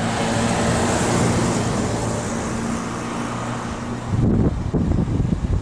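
A motor vehicle's engine runs close by with a steady hum and road noise. From about four seconds in, the hum gives way to wind buffeting the microphone.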